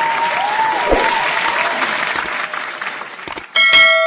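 Crowd applause with some sliding whistle-like tones, fading about three seconds in. Then a couple of sharp clicks and a bright bell ding that rings on, the usual click-and-bell effect of an animated subscribe button.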